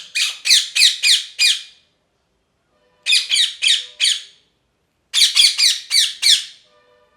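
Ringneck parrot giving loud, harsh squawks in three quick bursts, each burst a rapid run of four to six calls that slide downward in pitch.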